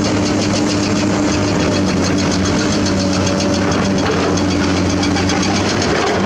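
Diesel engines of hydraulic excavators running steadily at work, the nearest a Komatsu PC200, with a fast high ticking of about eight beats a second over the engine hum.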